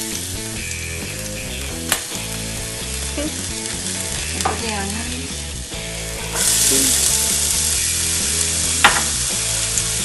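Garlic and chopped onion sizzling in hot oil in a nonstick frying pan, a steady frying hiss that jumps louder about six seconds in as the onion hits the oil. Two sharp clicks stand out, one near the start and one near the end.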